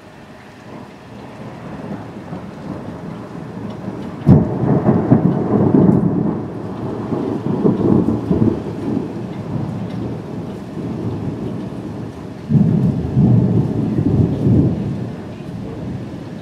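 Thunder: a low rumble builds, then a sharp clap about four seconds in breaks into a long rolling rumble. A second clap about twelve seconds in rolls on for a few seconds.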